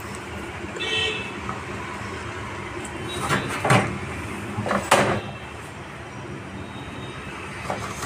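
A few sharp knocks, around three and a half seconds in and again near five seconds, as the washing machine's tub and parts are handled during disassembly, over steady background noise.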